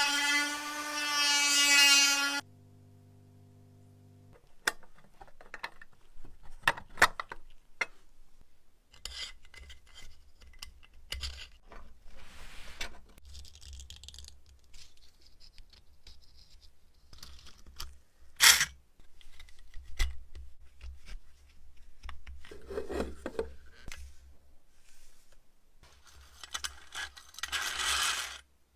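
A tune ends, followed by a few seconds of steady tones. After that come scattered clicks, knocks and scraping sounds of something being handled or worked, over a low hum, with one loud knock about two-thirds of the way in.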